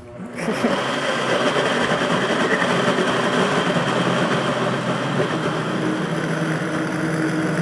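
Countertop blender starting up and running at high speed, churning frozen banana slices, whole strawberries and milk. The motor's hum steadies in the second half as the mix turns smooth.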